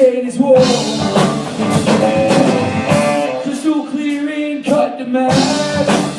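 A live rock band playing a song: drum kit with cymbal hits and guitar, between sung lines.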